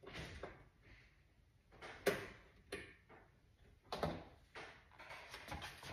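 A few sharp clicks and knocks of things being handled, the loudest about two seconds in, then more around four seconds and a scatter near the end.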